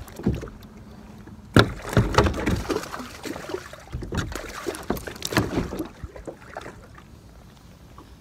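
A fish being landed into a plastic kayak: irregular knocks and bumps against the hull and gear with splashing, the sharpest knock about a second and a half in, dying down after about six seconds.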